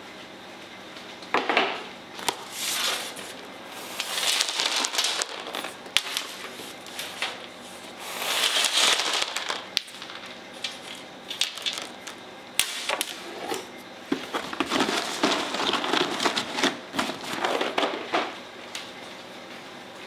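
Pepernoten, small hard spiced cookies, sliding and rattling off metal baking trays into a cardboard box, in repeated bursts of clattering and scraping with sharp clicks as the trays are handled.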